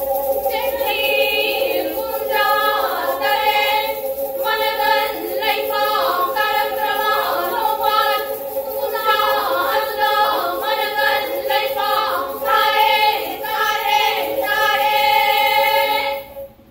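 Four women singing a Meitei folk song in unison to pena, the Manipuri single-string bowed fiddle, whose bowed string holds a steady tone under the voices. Voices and fiddles stop together near the end.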